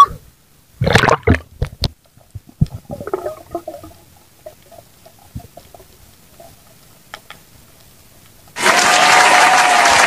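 Muffled underwater thumps and gurgles, then about a second and a half before the end a sudden loud burst of applause, edited in over the underwater footage.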